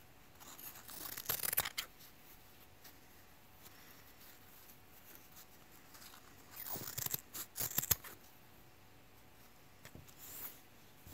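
Kitchen scissors with roughly serrated blades snipping through Kevlar fabric: a run of cuts about a second in, a louder run two-thirds of the way through, and a short snip near the end.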